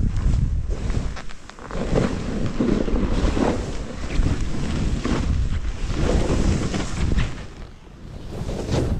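Deep powder snow swishing and spraying under a rider's turns, swelling and fading about five times, with wind rushing over the camera's microphone.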